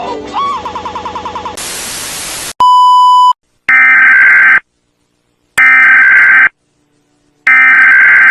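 Electronic beeping that pulses about seven times a second, a second of static hiss, and a short steady beep. Then three bursts of Emergency Alert System header data, a harsh digital screech about a second long each, with a second of silence between them.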